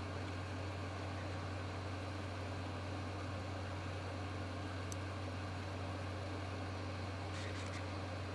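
Steady low hum and airy hiss of a hot air rework station blowing, with a faint click about five seconds in and a few faint scratches near the end.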